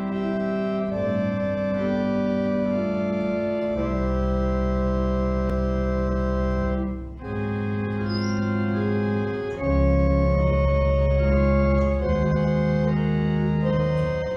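Organ playing slow, sustained chords over deep held bass notes, with a brief break about seven seconds in.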